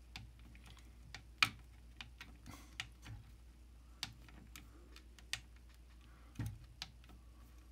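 Small, irregular clicks and taps of a little wrench working a machine screw into a 3D-printed plastic fan mount, about one every second, over a faint steady low hum.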